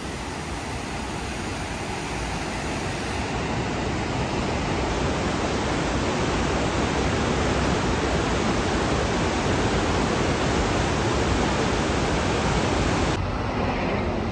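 Loud, steady rushing roar of whitewater rapids on the Kern River running very high with snowmelt, growing louder over the first few seconds. About a second before the end it cuts suddenly to a quieter, duller rushing.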